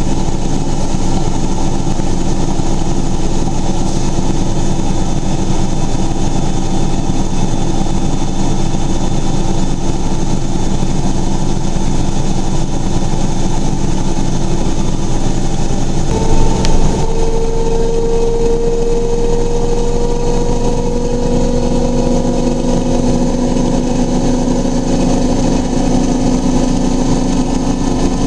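Miele Novotronic W923 washing machine running a high-speed spin, its motor giving a steady whine. About halfway through there is a brief knock, and the motor's whine shifts to a new pitch that rises slowly, as the drum changes speed.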